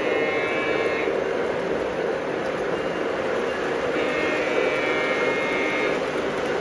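Model freight train of tank cars and a caboose rolling around a curve on the layout: a steady rumble of metal wheels on the track, with a faint high whine that comes and goes twice.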